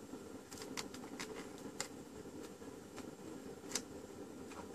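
Faint clicks and taps of a multimeter test lead being handled and touched against a bench power supply's binding posts, a few scattered clicks over a low steady background hum.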